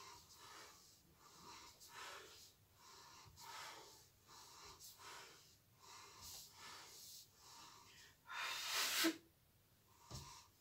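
A woman's heavy breathing while exercising: a steady run of short, faint puffs of breath, then one longer, louder exhale near the end.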